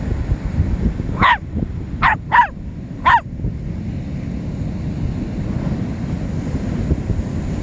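Puppy barking: four short, high-pitched barks in the first half, the middle two close together.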